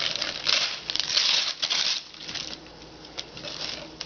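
Gift wrapping paper being ripped and crumpled by hand: several quick rips in the first two and a half seconds, then quieter rustling of the paper.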